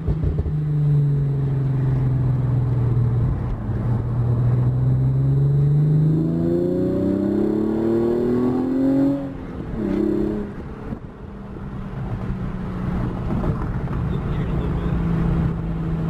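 2013 Hyundai Genesis Coupe's 3.8 V6 breathing through a new Injen cold air intake, heard from inside the cabin. It cruises steadily, then accelerates with its pitch rising for about three seconds, drops away suddenly around nine seconds in, and settles back to a steady cruise.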